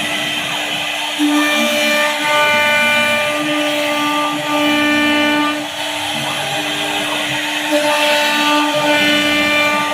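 CNC router spindle running and cutting a WPC door panel. A steady whine with overtones shifts slightly in pitch as the cutter's load changes, over a hiss of cutting noise.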